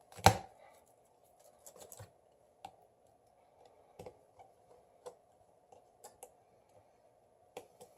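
Scattered small clicks and taps of hand tools and parts being handled on a smartphone during a screen repair, over a faint steady hum, with one louder brief sound right at the start.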